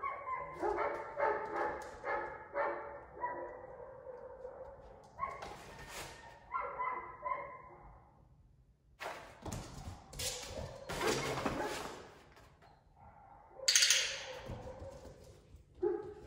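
German Shorthaired Pointer puppy whining and yipping in a quick run of short, high calls, then again briefly a few seconds later. Broad rustling and scuffling noises follow, the loudest one near the end.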